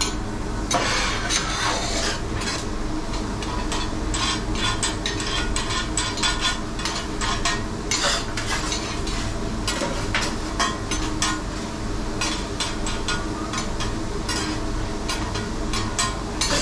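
Metal spatulas clacking and scraping on a hot teppanyaki griddle, many quick irregular strikes, while vegetables for fried rice sizzle on the plate.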